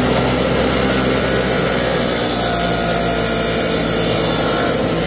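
Abrasive chop saw running steadily and cutting through half-inch hydraulic hose, grinding through the steel wire reinforcement inside it.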